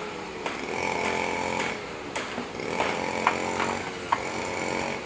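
A small engine's buzzing drone with a steady whine above it, and a few light clinks of utensils about halfway through.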